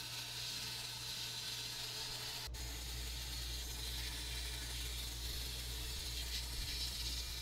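Sandblaster gun in a blast cabinet blasting a small cast-iron coin-bank figure, a steady hiss of air and abrasive stripping the old paint. There is a momentary break about two and a half seconds in.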